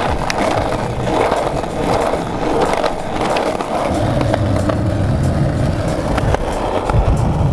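Skateboard wheels rolling steadily over pavement, a continuous rumble with a few brief clicks, the rumble growing heavier about halfway through.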